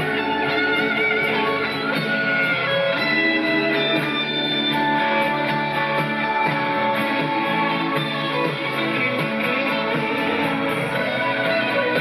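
Live rock band playing an instrumental passage with no singing, guitar to the fore over a steady beat.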